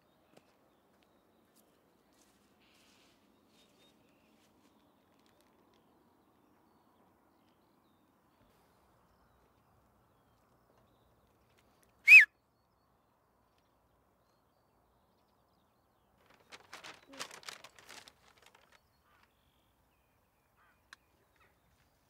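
Near silence broken about halfway through by a single short, high chirp or whistle that dips slightly in pitch. A few seconds later comes a soft patch of rustling footsteps in grass.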